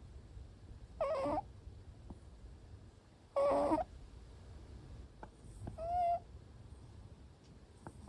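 Short-legged Munchkin cat snoring, a little high-pitched. Three short snores come about two and a half seconds apart, one per breath, and the middle one is the loudest.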